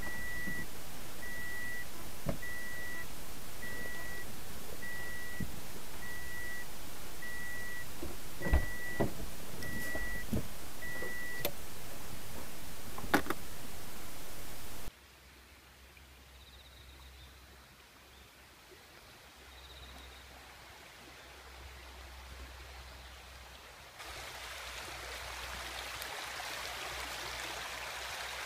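A parked car's electronic warning chime beeps about once a second, with a few knocks and clicks, and stops after about eleven seconds. After a cut and a few seconds of near silence, a shallow rocky creek is heard flowing steadily.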